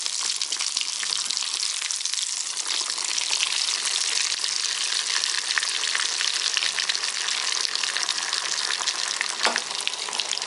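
Breadcrumb-coated potato patty deep-frying in hot oil in a kadai: a steady, dense crackle of bubbling oil, with a single sharper knock near the end.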